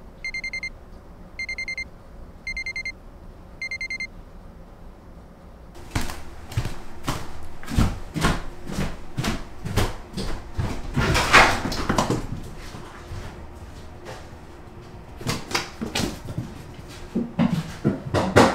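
Digital alarm clock beeping in four bursts of rapid high beeps over the first few seconds. After that comes a run of irregular knocks, thumps and footsteps on a wooden floor and stairs, loudest about halfway through and again near the end.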